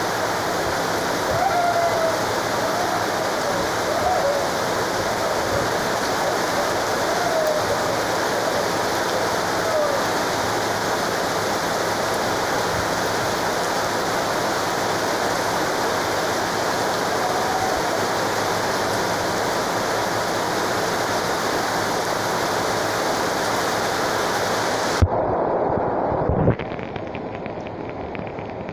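Torrential rain pouring down in a steady, dense hiss. About 25 seconds in, there is a knock, then the rain sound drops sharply and turns duller, with a second knock a moment later.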